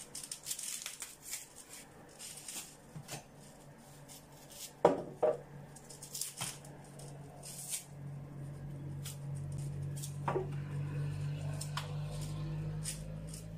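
Scattered small clicks and knocks of unripe plantain being peeled by hand over a plastic bowl, with a sharp double knock about five seconds in. A low steady hum comes in about eight seconds in.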